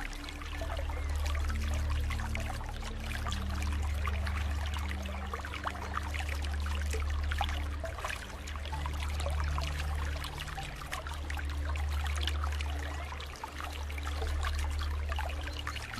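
Water flowing and trickling steadily with fine splashing, over low steady tones that change pitch every few seconds.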